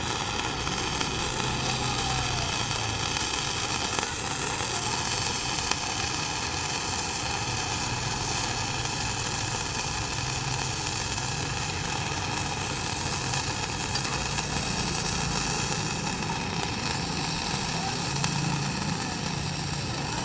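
Gasless flux-cored MIG welding arc burning steadily without a break, laying a bead on 6 mm steel plate at about 140 A and 19.8 V, throwing spatter.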